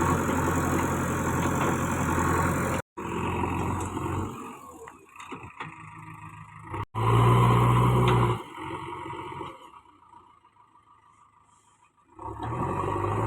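Heavy machinery engine running with a steady low hum, cut off abruptly about three seconds in. It comes back loud about seven seconds in, dies away to near silence, and starts up again near the end.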